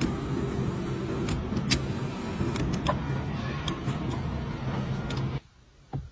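BYD Tang SUV's electric power-seat motor running as the front seat is moved from its seat-side switch: a steady whirring hum with a few light clicks. It cuts off suddenly about five seconds in.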